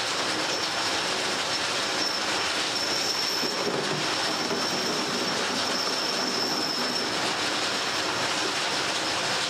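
Workshop machinery running steadily: an even rushing noise with a thin high whine over it.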